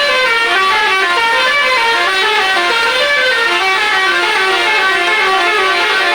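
Bus 'telolet' multi-tone horn playing a quick tune: a continuous run of short stepped notes that climb and fall, several pitches sounding together.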